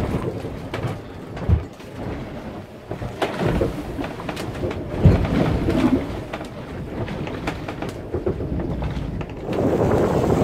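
Inside the cabin of a sailing yacht driving through rough seas: a low rumble of water against the hull, broken by irregular knocks and thumps. About nine and a half seconds in, it gives way to a steady, louder rush of wind on the microphone and breaking water.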